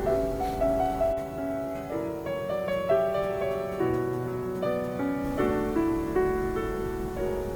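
Background piano music playing a slow, gentle melody of held notes.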